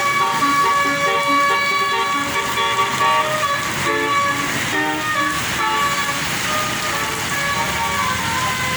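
Bus telolet horn of the basuri type, a multi-tone musical horn, playing a tune: quick stepped notes in the first half, then longer held notes toward the end.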